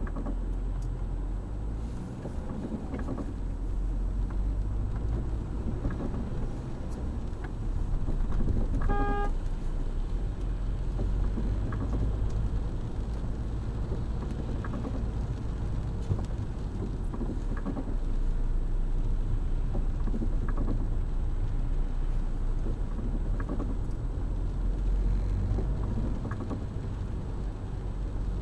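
Car driving on a wet road in the rain, heard from inside the cabin: a steady low rumble of engine and tyres. A short pitched beep sounds about nine seconds in.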